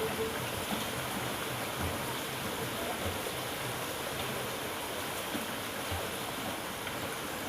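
Steady rushing of running water, an even noise that holds without change.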